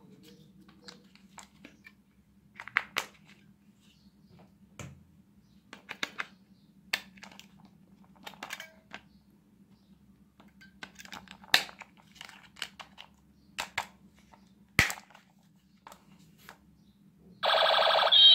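Plastic clicks and rattles as a toy ray gun's battery compartment is opened, AA batteries are fitted and the cover is snapped shut. Near the end the toy's electronic sound effect starts suddenly and loud, a siren-like tone.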